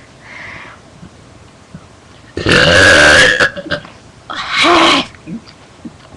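A girl belching loudly twice on purpose: a long belch of about a second, then a shorter one about a second later.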